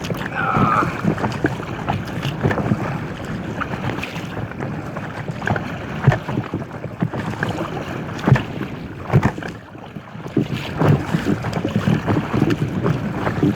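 Water sloshing and lapping against an inflatable kayak, with wind buffeting the microphone and a few sharp knocks scattered through.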